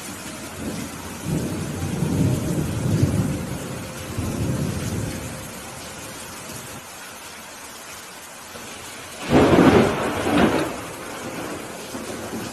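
Steady rain with thunder: a low rumble starting about a second in and lasting several seconds, then a louder, sharper thunderclap about nine seconds in.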